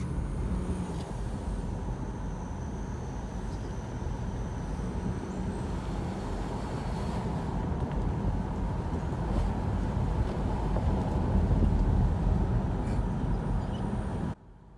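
Cabin noise of a 2011 Honda CR-V driving: a steady low road and engine rumble that grows louder over the last several seconds and then cuts off suddenly near the end. The vibration noise the owners are trying to record is not apparent.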